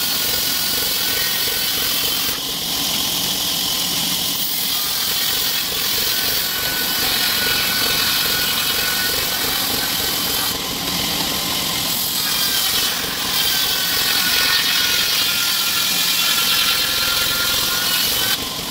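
Vertical band saw running steadily and ripping lengthwise through a log, a loud hiss of blade and sawdust over a faint whine. The high cutting hiss eases briefly a few times.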